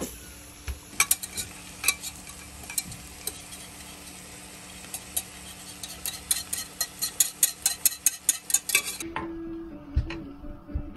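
Lobster tails sizzling in a frying pan on a gas stove, with many sharp pops and clicks of the pan and utensil. The sizzle cuts off suddenly about nine seconds in, followed by a single thump about a second later.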